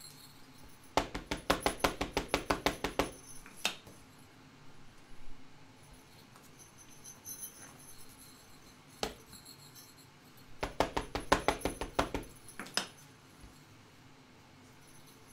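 Two runs of quick light taps, about eight a second for about two seconds each, as an ink pad is dabbed onto a rubber stamp held in a hinged stamp-positioning platform. A few single knocks fall between and after the runs.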